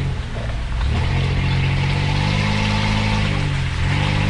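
Off-road 4x4's engine running under load in low gear, heard from inside the cab, its revs rising and easing off a couple of times.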